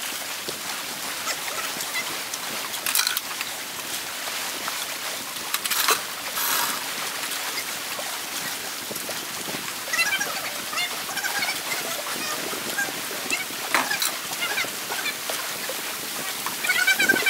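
Steady hiss of wind and lake water, broken by a few sharp knocks and short bursts of high chirping.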